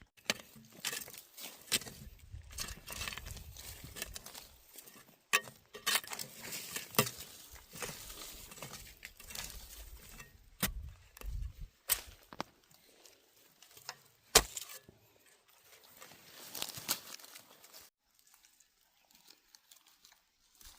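Dry corn leaves and husks rustling and crinkling, broken by sharp snaps, as corn is picked by hand. The sounds die away a few seconds before the end.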